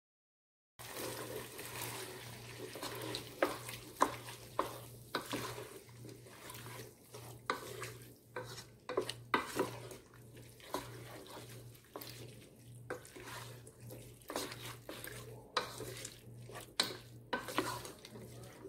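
Wooden spoon stirring chopped vegetables in sauce inside a nonstick pot, with irregular scrapes and light knocks against the pot, over a faint sizzle. It starts about a second in.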